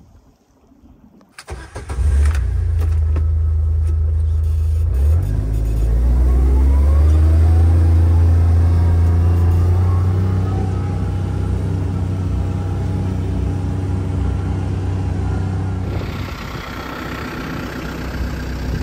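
Side-by-side utility vehicle's engine running while driving through snow, heard from inside the cab, its pitch rising as it accelerates a few seconds in. It starts abruptly about a second and a half in, and near the end gives way to a TYM tractor's diesel engine running.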